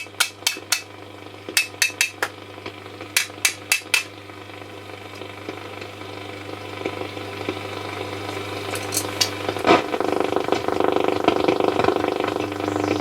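Roberts R707 transistor radio's speaker on the medium wave band with no station: a run of sharp clicks and crackles, then a steady hum and a hiss with faint whistles that grows louder, and a loud click near ten seconds. No station is received; the restorer suspects the module.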